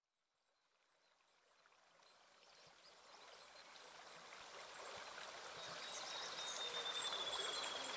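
Silent at first, then a recording of a flowing stream fades in about two seconds in and grows steadily louder, with faint high chirps over it.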